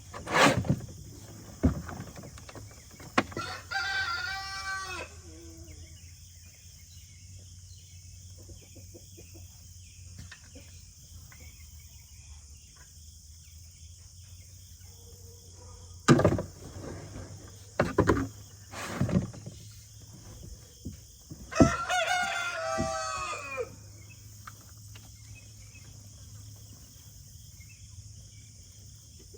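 A rooster crowing twice, about four seconds in and again about twenty-two seconds in, each crow lasting under two seconds. Several sharp knocks come near the start and again between sixteen and nineteen seconds. Crickets chirr steadily throughout.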